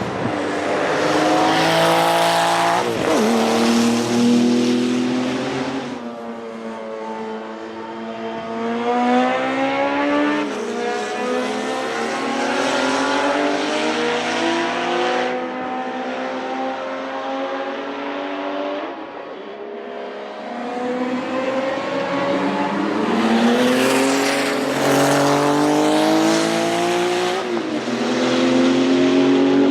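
Porsche 935 K3 Kremer's 3.2-litre twin-turbo flat-six racing engine at full throttle on track, its pitch climbing through the gears and dropping back at each of several upshifts and lifts.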